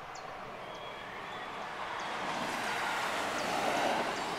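Road traffic: a vehicle passing, its steady rush of tyre and engine noise swelling to a peak near the end and then easing off.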